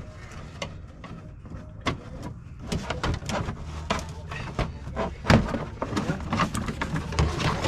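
A pry tool working at the retainers of an underbody cover: a string of sharp clicks and knocks, busier from about three seconds in, over a steady low hum.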